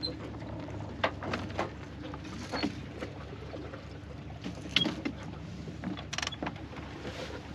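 Sailboat under way under sail: water and wind noise over a steady low hum, with scattered sharp knocks and clicks from the boat's gear.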